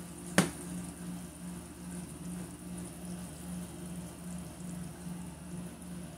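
Tomato and onion sauce simmering in a frying pan, stirred with a silicone spatula on turned-down heat, with one sharp click less than half a second in. Under it runs a low hum that pulses about twice a second.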